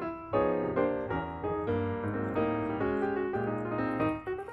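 Background piano music playing a string of notes.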